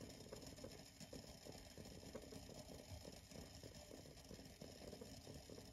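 Kettle of water heating on a kerosene stove and coming up to the boil: faint, irregular crackling and ticking from the water.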